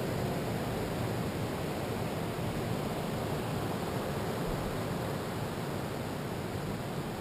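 Steady, even rushing of ocean surf breaking and washing up a sandy beach.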